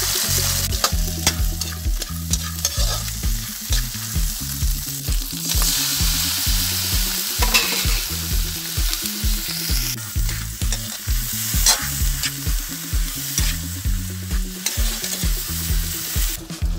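Small crabs and sliced eggplant sizzling in hot oil in a metal wok, with a metal spatula stirring and scraping them in repeated strokes.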